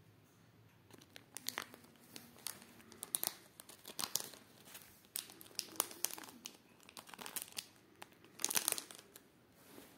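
A parakeet's beak crinkling and tearing at thin plastic wrapping: irregular bursts of crackling that begin about a second in, with the loudest flurry near the end.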